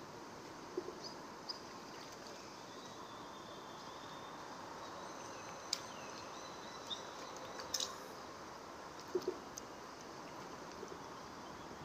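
Steady riverside outdoor background noise with faint bird calls, including a few low cooing notes, and a handful of short sharp clicks, the sharpest about six and eight seconds in.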